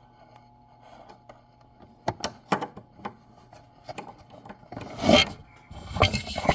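Handling noise: a few light clicks of small hard parts, then louder rubbing and scraping close to the microphone near the end.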